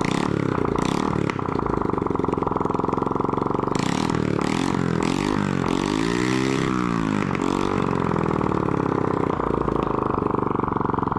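Honda TRX125 air-cooled single-cylinder four-stroke engine, freshly top-end rebuilt with a 56.5 mm big-bore piston, running on the bench with no muffler fitted. It runs steadily, then is revved up and down several times in the middle before settling back.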